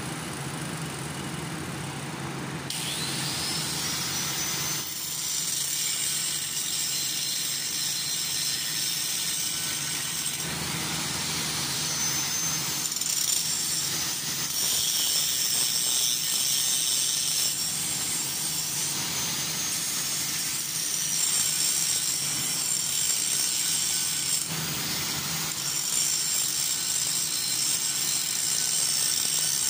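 Metalworking noise: a steady high hiss that changes abruptly every few seconds. About three times a whine rises quickly and then levels off, as a motor does when spinning up.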